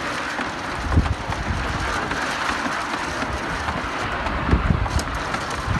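A human-powered hamster-wheel snow cone machine running as it shaves ice: a steady rolling, rumbling mechanical noise with a couple of low thumps, one about a second in and one near the end.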